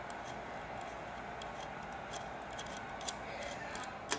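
Faint scattered clicks of a screwdriver unscrewing a small screw from a miniature light-bulb holder, with one sharper click near the end, over low room hiss.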